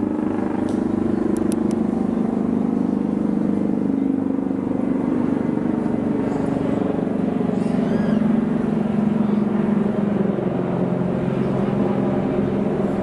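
Motor vehicle engine running close by: a steady low rumble whose pitch drifts slowly, over general street noise.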